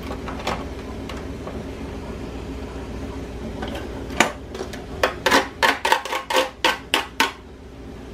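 Steady low hum, then from about four seconds in a quick run of about a dozen sharp taps and knocks on a kitchen countertop, around three a second.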